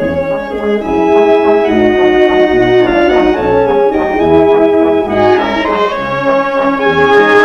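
Military brass band music: sustained chords over an evenly repeating bass note.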